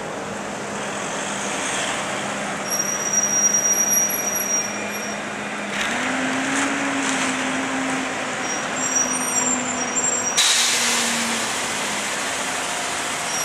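Heavy-haul truck's diesel engine running as it drags an oversized load slowly past, its pitch rising about six seconds in as it pulls harder. About ten seconds in comes a sharp hiss of air brakes, with a thin high whine on and off.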